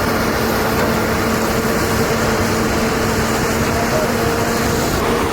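Steady mechanical hum with two constant tones running through a rushing noise.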